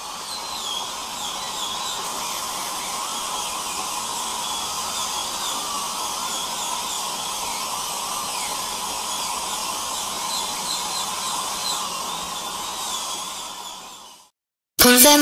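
Dental drill sound effect: a steady whine with a wavering high pitch over a noisy hiss. It fades out near the end, and after a brief silence the music starts abruptly.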